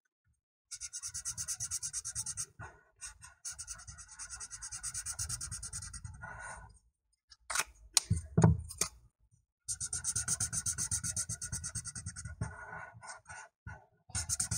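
Felt-tip marker colouring on paper: fast back-and-forth scribbling strokes, several a second, in three spells with short pauses between. A few sharp knocks come about halfway through.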